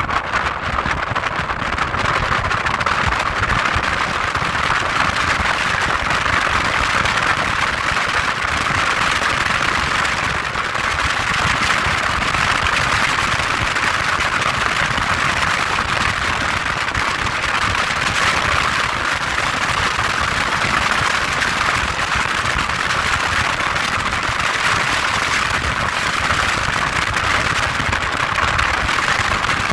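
Steady wind noise on the microphone of a moving motorboat, with the rush of engine and water under it.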